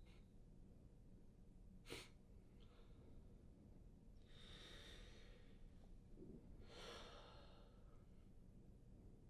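Faint breathing of a tearful young man: two long, airy exhales about two seconds apart, with a single faint click about two seconds in.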